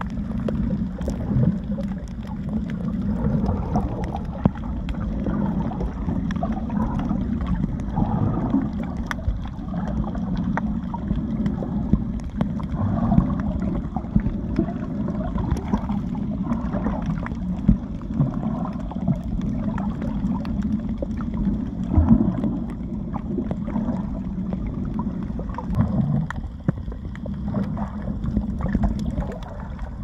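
Muffled underwater sound picked up by a camera held below the surface: water sloshing and gurgling around it, with a steady low hum and scattered faint clicks.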